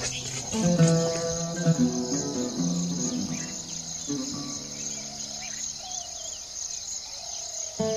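Steady high-pitched chorus of insects, with plucked-string background music playing slow held notes that thin out in the middle and pick up again near the end.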